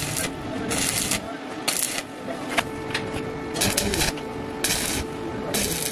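Stick (arc) welding on square steel tube: the electrode's arc crackles and sputters in about six short bursts, one every second or so. A steady hum joins partway through.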